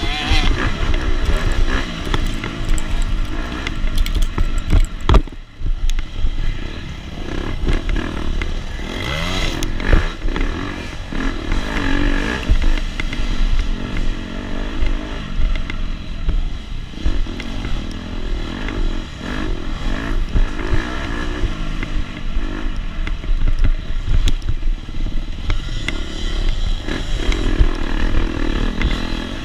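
KTM 250 SX two-stroke dirt bike engine revving up and down over and over while racing, with rattling and clatter from the bike. About five seconds in the engine briefly drops off, with a sharp knock.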